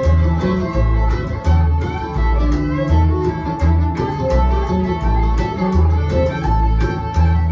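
Instrumental break of a live string-band song: fiddle playing the melody over strummed acoustic guitar, with a bass line moving between low notes about twice a second.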